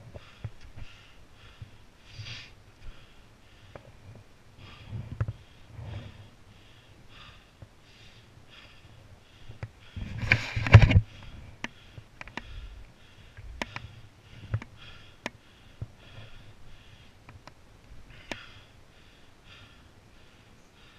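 A snowboard running fast over a bumpy, packed-snow run, with sharp knocks as it hits the bumps and one loud scrape of snow about ten seconds in. Over it comes the rider's quick, heavy breathing.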